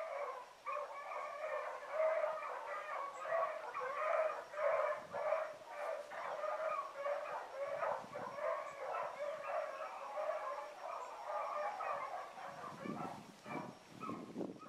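A pack of rabbit hounds baying as they run a rabbit's trail, many voices overlapping in an unbroken chorus.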